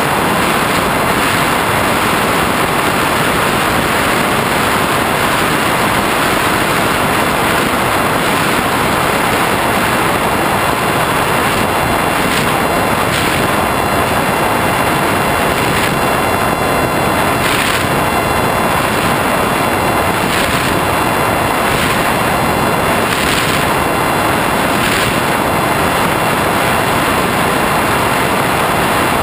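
Red Eagle FPV flying wing in flight, heard through its onboard GoPro: the motor and propeller running steadily under a heavy rush of wind over the camera's microphone.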